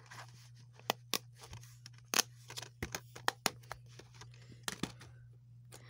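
Plastic DVD case being handled: the disc pressed onto its centre hub and the case snapped shut, a string of sharp plastic clicks and taps.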